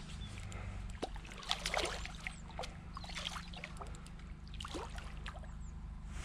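A hooked carp splashing and thrashing at the water's surface while being played on light spinning tackle, several short splashes over a few seconds.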